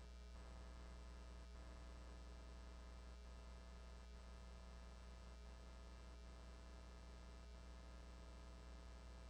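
Near silence, with a steady low electrical hum in the audio line.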